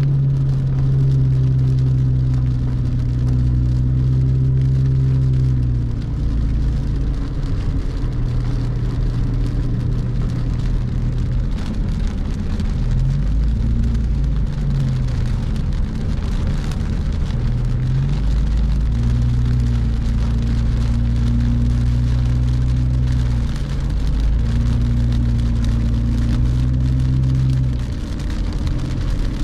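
Heavy rain falling on a car's roof and windshield, heard from inside the cabin, over the low hum of the car's engine. The hum shifts in pitch several times as the car changes speed, with a short rise and fall around the middle.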